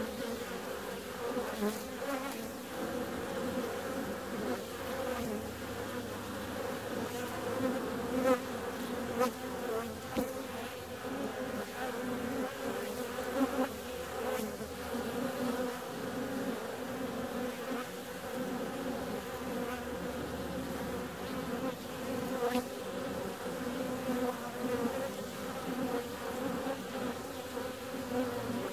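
Many honeybees buzzing as they fly in and out of a hive entrance: a steady hum, with brief louder swells as single bees pass close by.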